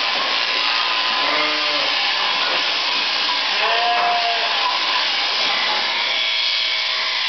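Sheep bleating twice, about a second in and again around four seconds, over the steady buzz of an electric sheep-shearing handpiece cutting through the fleece.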